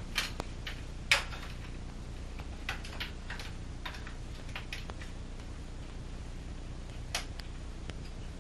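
Scattered, irregular light clicks and taps over a low steady hum, the sharpest about a second in.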